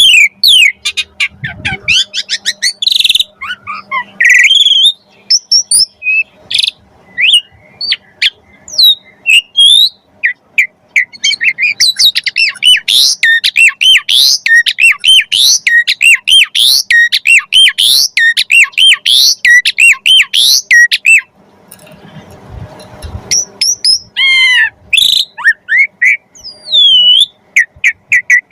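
Asian pied starling (jalak suren) singing: a loud, varied run of whistles, rising and falling glides and squawky chirps, with a long stretch of fast repeated notes in the middle and a brief pause about 21 seconds in.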